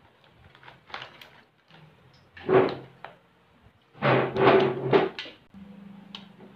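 Boiled mud crabs being broken apart by hand in a plastic basin: shells cracking and clattering in a few loud bursts, the longest about four seconds in. A steady low hum starts near the end.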